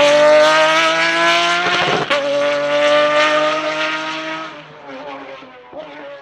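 Pagani Zonda track car's V12 at full throttle, its pitch climbing through the revs with a quick upshift about two seconds in, then fading as the car pulls away.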